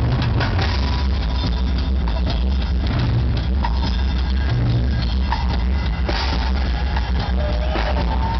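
Drum solo on a large rock drum kit: dense, rapid strokes on toms, bass drum and cymbals, heard in an arena with poor audio quality and a heavy, boomy low end.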